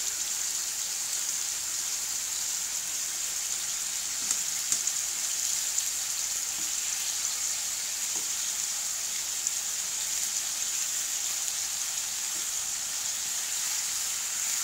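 Chicken pieces sizzling steadily as they fry in a wok, with a few light clicks of metal tongs against the pan and meat as the pieces are turned.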